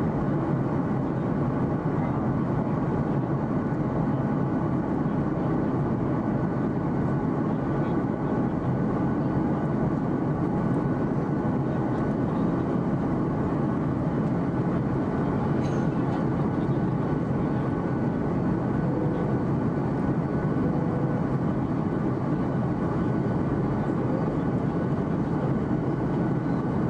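Steady roar of an airliner cabin in flight: engine and airflow noise heard from inside by the window, unchanging throughout, with a faint steady whine above it.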